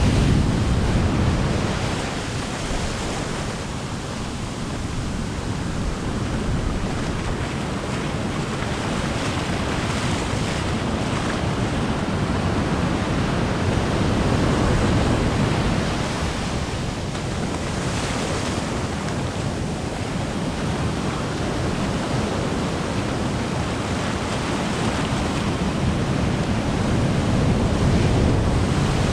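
Heavy surf breaking right at the shoreline, a continuous rushing wash that swells and eases as each wave crashes and runs up the sand.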